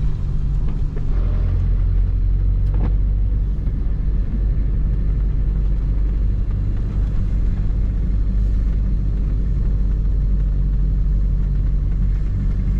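Steady low rumble of engine and road noise heard inside the cab of a Toyota Hilux pickup driving on a wet mountain road.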